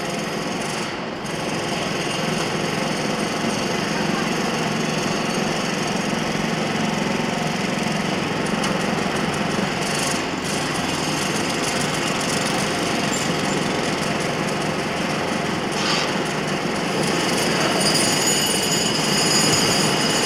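Construction site ambience: a steady, dense din of machinery and power tools, growing slightly louder near the end.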